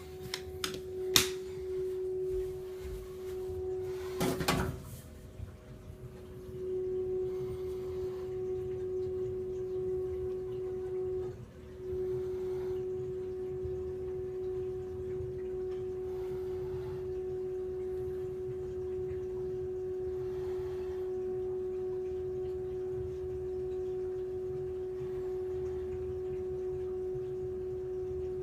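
NIBE heat pump giving off a steady, pitched hum: one held tone with a fainter higher tone above it, fading for a moment near five seconds in and dropping out briefly near the middle. A click comes about a second in and a louder knock comes near four and a half seconds. This is a recurring fault noise that repeated service work has not cured.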